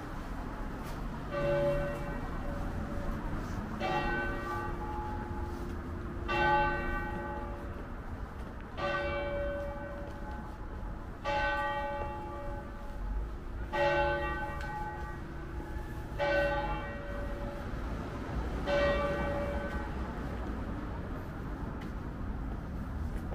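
A tower clock bell striking slowly and evenly, eight strokes about two and a half seconds apart, each left to ring on: a clock striking the hour.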